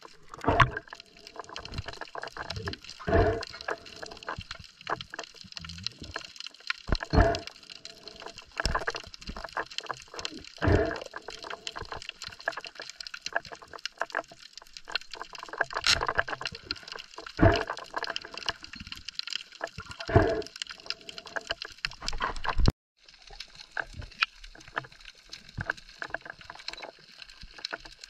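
Underwater sound picked up by a camera beneath the surface: water sloshing and gurgling against the housing, with short louder whooshes every few seconds and faint crackling clicks throughout. The sound cuts out for a moment about three-quarters of the way through.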